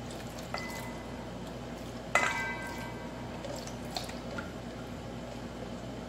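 A glass beaker clinks against a stainless steel mixing bowl, once lightly about half a second in and more loudly with a short ring about two seconds in, with a few smaller taps later. Between them, a silicone spatula stirs a thick cream as liquid is poured in, making soft wet dripping and squishing.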